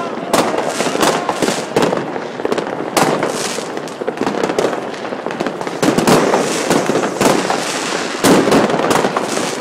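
Fireworks display: aerial shells bursting in many loud bangs in quick, irregular succession.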